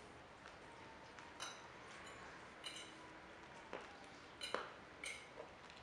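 A capybara chewing dried corn kernels: a few faint, sharp crunching cracks, roughly one a second.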